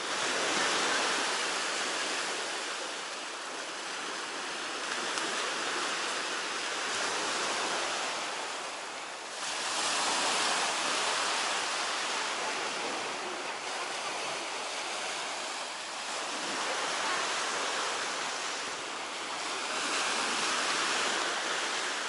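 Baltic Sea waves washing onto the shore, a steady rush of surf that rises and falls in slow surges.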